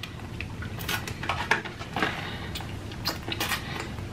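Close-up mouth sounds of eating a chewy Sour Patch candy cane: irregular wet smacks and clicks of sucking and chewing.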